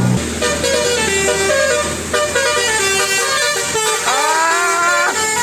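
Bus 'telolet' musical air horn playing a multi-note melody, the notes stepping quickly from one to the next. About four seconds in the notes slide upward together, hold, and cut off sharply.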